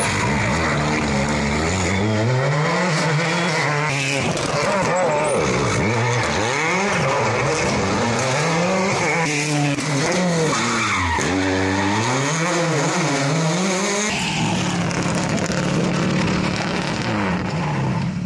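Rally car engines revving hard past the stage, the note climbing and dropping again and again through gear changes and lifts. For the last few seconds a steadier engine note.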